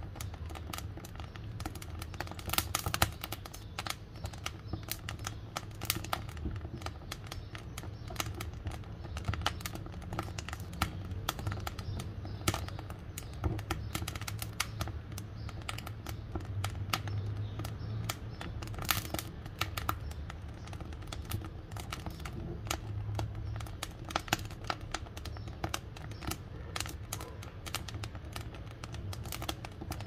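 Wood fire crackling in the firebox of a brick wood-burning cookstove, sawn wooden boards burning. Irregular sharp pops and snaps come thick and fast over a steady low rumble.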